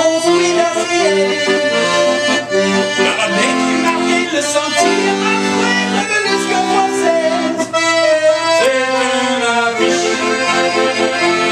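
Piano accordion playing an instrumental passage: a melody over repeated bass-and-chord accompaniment.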